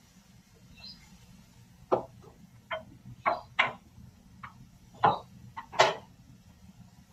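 Black slotted cooking spoon knocking against the pan and the chicken pieces while stirring: a run of about seven sharp, separate knocks starting about two seconds in, the loudest near the end.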